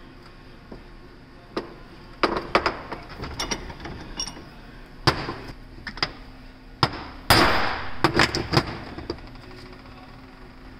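Hammer knocking on a steel U-joint and axle shaft during U-joint assembly: a dozen or so sharp metal strikes at irregular intervals, some ringing briefly, with a longer half-second burst of noise about seven seconds in.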